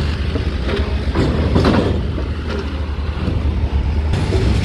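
Medium tourist bus running as it drives off a ferry's steel ramp, over a steady low rumble, with a few knocks in the first two seconds or so.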